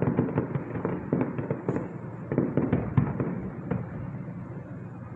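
Fireworks display going off: a rapid string of bangs and crackles that thins out and fades about four seconds in.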